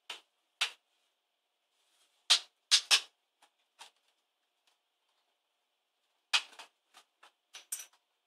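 Sharp plastic clicks and snaps from an Asus K55VJ laptop's casing as it is pried and worked apart by hand, coming in irregular clusters with the loudest, a quick run of three, about two and a half seconds in.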